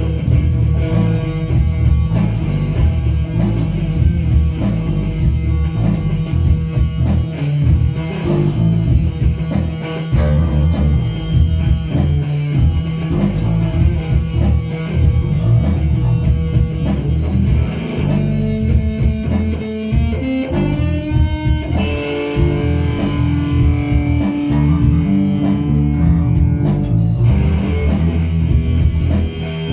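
Two guitars, at least one of them electric, played together in a loud rock jam with dense, low riffing. About two-thirds through, the riff gives way to held notes and a rising slide, then one long sustained note before the riffing picks up again.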